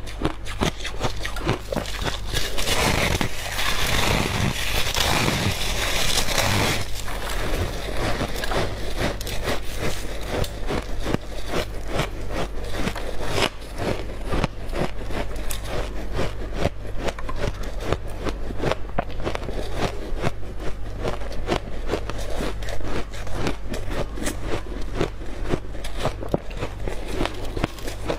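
Refrozen shaved ice crunching as it is bitten and chewed close to a clip-on microphone, a rapid string of crisp crackles, with a louder stretch of crushing a few seconds in as the packed ice is squeezed and broken. A steady low hum sits underneath.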